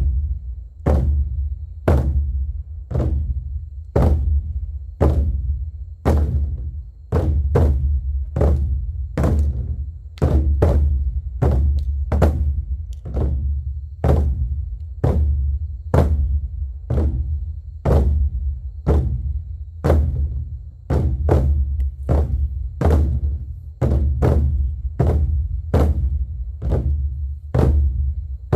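An ensemble of big Korean barrel drums (buk) struck in unison with deep, booming strokes, about one a second at first and gradually quickening to roughly two a second. The rhythm is meant to sound like horses setting off at a walk before breaking into a gallop.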